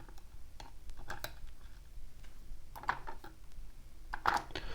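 Scattered light clicks and taps of small metal lock parts, pins and springs, being handled and set into a parts tray while a lock is disassembled.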